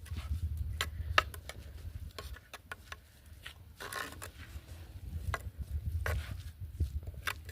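Wooden stick stirring thick ugali in a cooking pot, with irregular scrapes and knocks against the pot over a steady low rumble.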